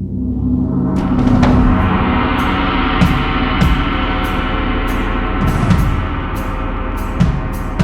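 Music for percussion and electronics: a dense ringing wash swells up over the first second, with scattered low drum hits under it. Short, hissy high strokes come in about two and a half seconds in and repeat at a steady pulse of roughly two a second.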